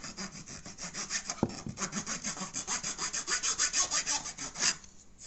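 The Leatherman Rev multi-tool's wood/metal file rasping in rapid back-and-forth strokes, stopping near the end.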